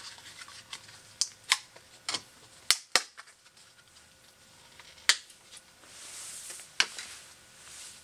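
Plastic packaging of a new laptop memory stick being pried open: a string of sharp plastic snaps and clicks, the loudest about three and five seconds in, with a short rustle near the end.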